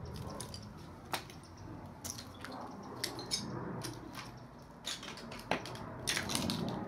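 Footsteps crunching on broken glass and debris: an uneven run of sharp crunches and cracks, the loudest about five and a half seconds in.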